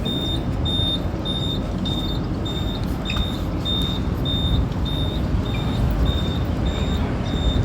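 A high electronic beep repeating evenly, a little under twice a second, over the steady low rumble of a bus engine.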